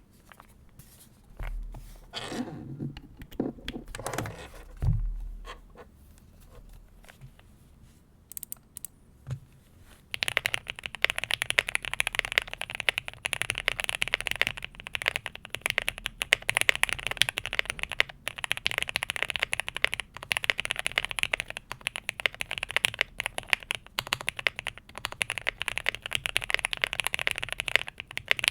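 Typing on a QK65 gasket-mount mechanical keyboard with lubed, filmed Gateron Oil King linear switches, an FR4 plate and GMK keycaps. A few scattered keystrokes and deeper knocks come first, then fast, continuous typing starts about ten seconds in.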